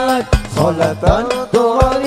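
Sholawat singing in the habsyi style: a voice holding long notes and sliding between pitches over frame drums beating a steady rhythm of sharp strokes and deep thumps.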